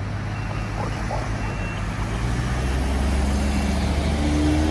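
Large truck engine running with a low steady hum that grows louder and rises in pitch over the last couple of seconds, with a few faint short high beeps.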